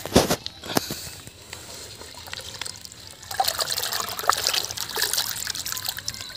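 Water splashing and trickling: a sharp splash right at the start and another just before a second in, then a busier stretch of splashing and dripping from about three seconds in until near the end.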